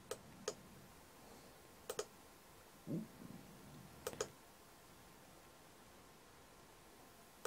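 Computer mouse button clicking, faint: a couple of single clicks and several quick double clicks while files are picked and dialogs confirmed, with one short low thud about three seconds in.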